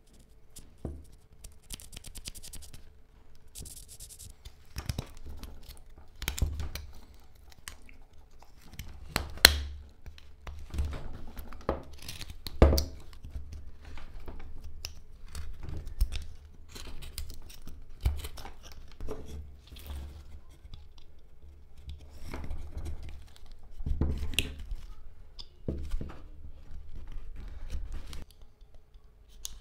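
Carving knife slicing and shaving a stick of hard black locust wood, one irregular cut after another, each a short crisp scraping tear, with a few louder cuts along the way.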